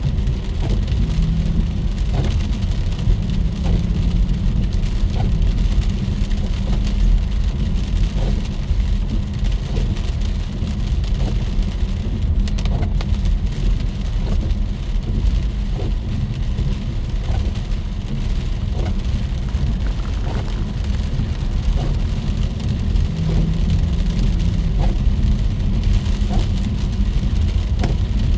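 Heavy rain falling steadily, with a deep rumble underneath and scattered short ticks.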